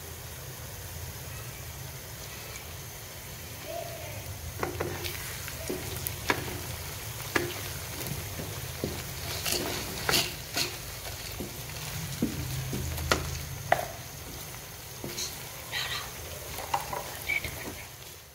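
Sliced onions and whole spices sizzling in hot oil in a wok. From about four seconds in, a wooden spatula stirs them, with repeated sharp scrapes and knocks against the pan.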